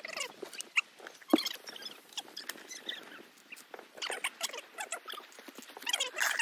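Fast-forwarded time-lapse audio of people talking and working: voices sped up into a high-pitched chattering squeak, with rapid clicks and a sharp knock just over a second in.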